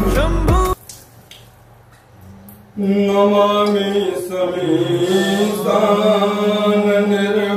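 Background music cuts off abruptly less than a second in; after about two quieter seconds, a man begins chanting a Vedic mantra in long, steadily held tones, with a dip in pitch about halfway through.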